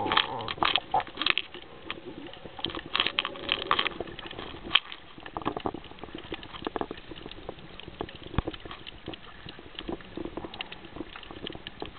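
Water splashing and bubbling around a snorkeler's camera, full of irregular crackling clicks, louder in spells at the start and about three seconds in.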